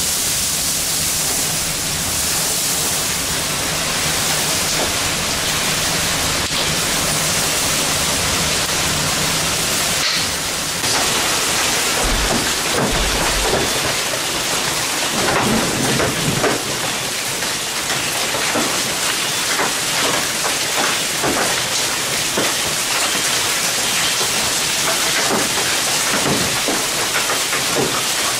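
Heavy summer storm rain pouring down as a dense, steady hiss, with a low rumble through the first ten seconds or so.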